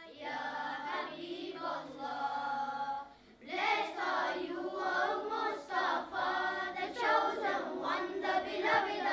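Boys' choir singing a naat, an Islamic devotional poem, without instruments. The singing breaks off briefly about three seconds in, then comes back louder.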